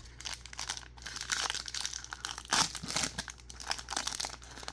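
Foil-lined Donruss baseball card pack being torn open, its wrapper crinkling in a dense run of sharp crackles, loudest about two and a half seconds in.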